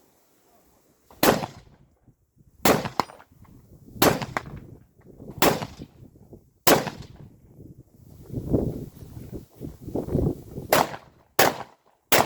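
Carbine gunshots fired one at a time, five about a second and a half apart. A gap of about four seconds follows, filled with softer knocks and clatter. Then three quicker shots come near the end.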